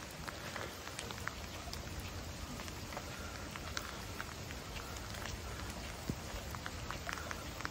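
Steady rain falling on a wet stone street, with scattered sharp ticks of drops.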